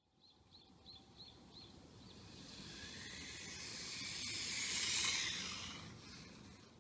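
WLtoys K989 mini RC rally car accelerating flat out along asphalt toward the camera and past it. Its motor whine rises and its tyre hiss swells to a peak about five seconds in, then fades away. A quick series of six high chirps sounds near the start.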